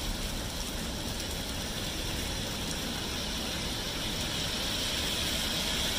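Steady city street traffic noise, a continuous hiss and rumble that grows slightly louder toward the end.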